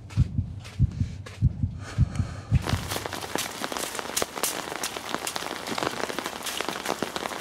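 Quick low thuds of running footsteps, about three a second, give way about two and a half seconds in to a steady pattering hiss like rain.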